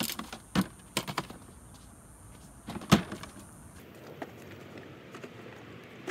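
A few sharp plastic knocks and clunks from a child's ride-on toy car as the boy handles the trash grabber in it and climbs into the seat; the loudest knock comes about three seconds in.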